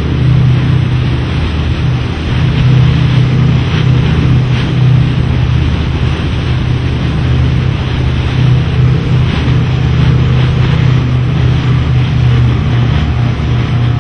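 Steady low rumble with rushing water and wind noise on the microphone, as from a boat underway at sea.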